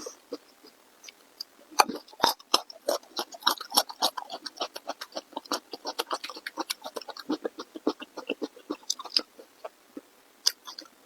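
A person chewing food with rapid, irregular mouth clicks and smacks, which fade out about nine seconds in; one last click comes near the end.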